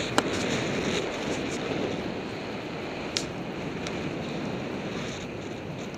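Airflow rushing over the microphone of a camera on a hang glider in flight, a steady rush with a couple of short clicks.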